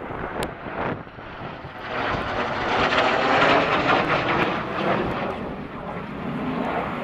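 Jet engine noise from a North American F-86 Sabre and a Hawker Hunter flying past together: a rushing noise that swells about two seconds in, is loudest a second or two later, then eases as the jets draw away.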